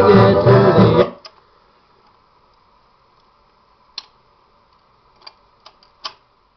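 A song played on a 1970 Magnavox portable record player, with singing and guitar, cuts off abruptly about a second in. A faint steady tone and a few faint, scattered mechanical clicks follow.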